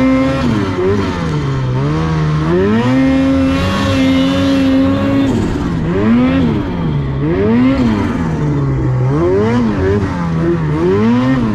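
Snowmobile engine revving up and down again and again as the throttle is worked, held high for a couple of seconds near the middle and then swinging up and down about once a second.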